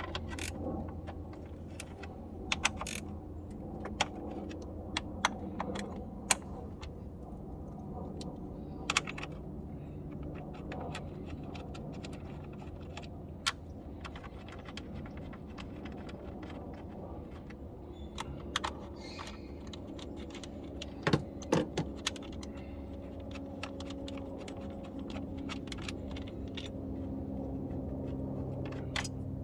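A steady low engine hum, with keys jingling and scattered sharp clicks.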